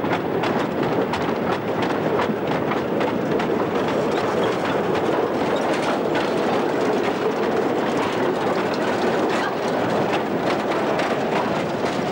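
Gravity train of narrow-gauge slate wagons rolling by. The wheels rumble and clatter steadily over the rails.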